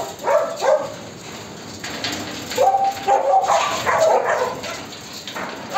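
Dogs barking in short, repeated pitched calls, in bursts about half a second in and again for a couple of seconds from around the middle.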